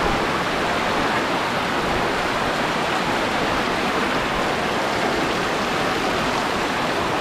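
Muddy floodwater rushing fast along a narrow street, with rain falling; a loud, steady rushing noise.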